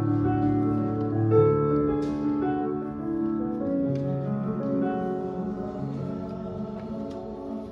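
Choir singing with digital piano accompaniment.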